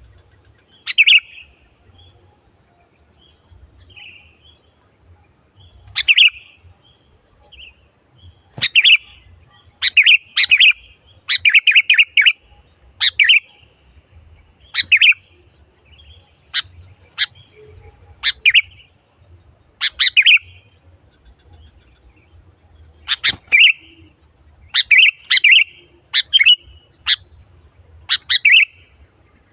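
Sooty-headed bulbul (kutilang) singing loud, clear, bright short phrases of a few quick notes, repeated every second or two with brief gaps.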